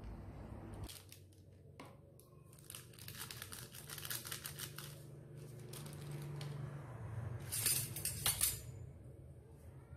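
Small plastic seasoning sachet crinkling and rustling as it is handled and its powdered chicken stock is shaken out, in several spells, loudest near the end.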